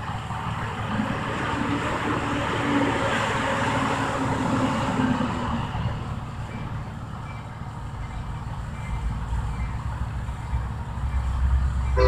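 Low rumble of an approaching Union Pacific diesel locomotive, growing louder over the last few seconds, with its horn starting just at the end. A broad rushing noise fills the first half.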